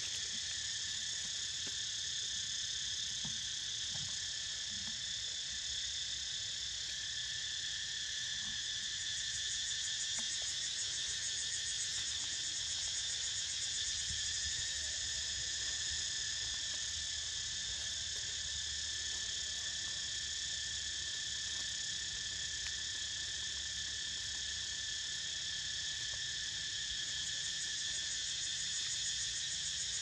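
Cicadas calling in chorus: a steady, unbroken high-pitched drone.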